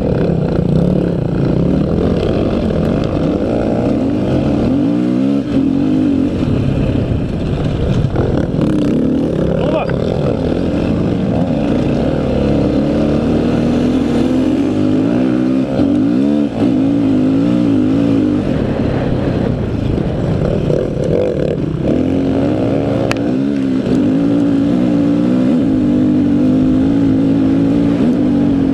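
Dirt bike engine running hard, close up. Its pitch rises and falls again and again with the throttle and gear changes.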